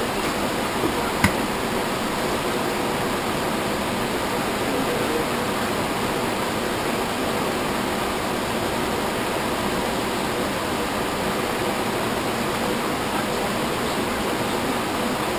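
Steady, even hiss of background noise, with one light click about a second in.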